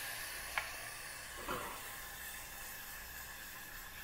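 Honey, mandarin zest and liqueur sizzling softly in a small saucepan over a gas flame, a steady hiss that slowly fades, with a faint click about half a second in.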